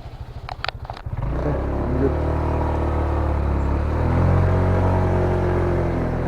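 Vehicle engine ticking over, then opening up about a second in and pulling steadily, a few clicks just before, with the engine pitch rising further near four seconds as it climbs under load.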